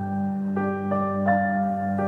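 Soft background score: a slow melody of single ringing notes, each struck one after another and left to sustain, over a steady held low tone.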